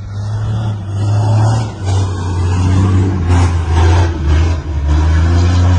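Kamaz rally truck's diesel engine running hard under load through soft sand, its pitch rising and falling as it revs, over a steady hiss.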